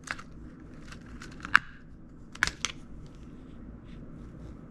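Light plastic wind-up toy boat being pried apart by hand: a few sharp plastic clicks and snaps, the loudest about a second and a half in, then a pair close together, followed by faint ticks.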